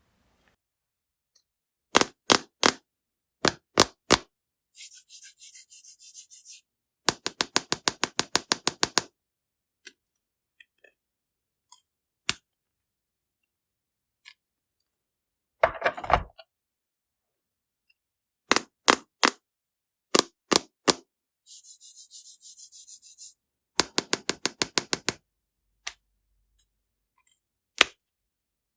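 Small hard candies clicking and clattering as they drop into a small plastic tub, in quick runs of sharp clicks with pauses between.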